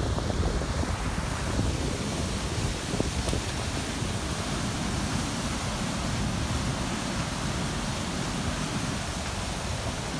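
Steady rush of white water as a small river tumbles down a rocky chute into a churning pool, with wind buffeting the microphone, most in the first second or two.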